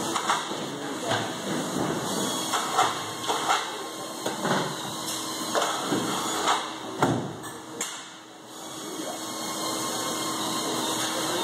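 Irregular knocks and clunks as a fibreglass boat deck is worked onto its hull, over a steady hiss of factory noise, with a low steady hum joining a couple of seconds in.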